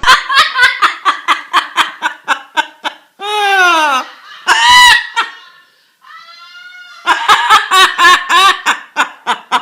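Parrot mimicking laughter: rapid runs of short 'ha-ha' notes, about five a second. About three seconds in, the runs break for a few longer drawn-out calls, one sliding down in pitch. The laughing resumes near the end.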